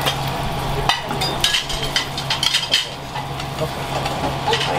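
Restaurant kitchen cooking: food sizzling in a frying pan, with metal utensils clinking and scraping against pans at irregular moments over a steady low hum.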